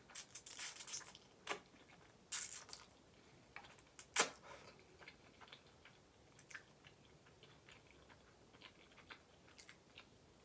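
Close-up chewing of a mouthful of ramen noodles, with short wet mouth-noise bursts in the first few seconds and a single sharp click about four seconds in, then quieter chewing with faint scattered clicks.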